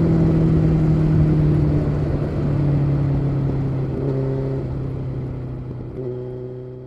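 Kawasaki Z900's inline-four engine running through an SC Project aftermarket exhaust, its note slowly dropping in pitch as the bike eases off, with small shifts in pitch along the way. It grows steadily quieter toward the end.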